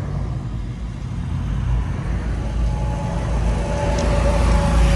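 2002 Mustang GT's 4.6-litre V8 idling with a low rumble, heard from inside the cabin, as cross traffic passes. It gets a little louder about four seconds in as a tanker truck goes by.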